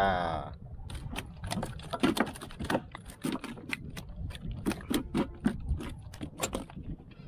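A small snook flapping on the line and slapping against the hard plastic of a kayak, a rapid, irregular series of sharp taps and smacks. It opens with a brief rising squeak.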